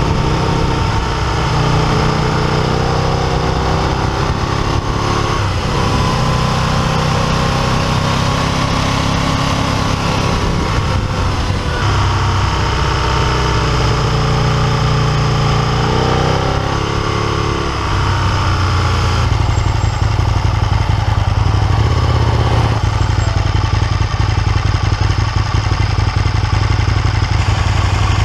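Motorcycle engine heard on the move, its pitch rising and falling as it accelerates and backs off through bends, over steady wind and road rush. In the last third it settles into a lower, steadier note as the bike slows.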